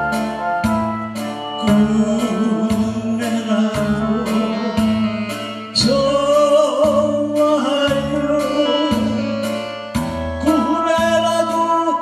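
A man singing a Korean trot song into a microphone over a backing track with a steady, regular bass beat. The voice comes in louder about six seconds in.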